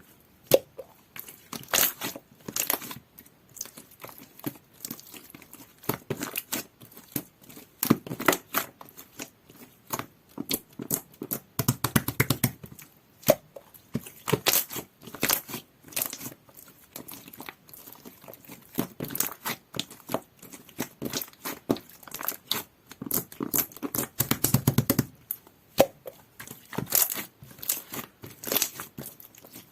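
Jelly-textured slime being squished and pulled by hand: a dense, irregular run of sticky clicks and crackling pops, with heavier squelching presses every few seconds.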